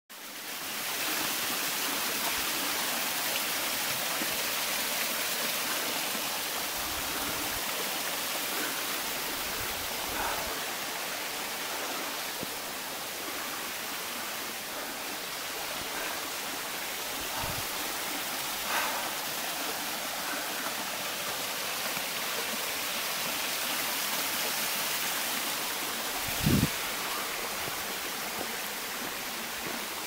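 Mountain stream running over rocks: a steady rush of water, with one dull thump near the end.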